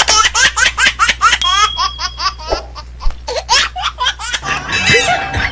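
A crowd laughing: many short, high bursts of laughter close together over a steady low hum.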